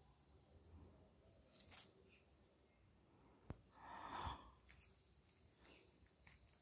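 Near silence: faint outdoor ambience, with a single sharp click and then a short, soft rustle about four seconds in.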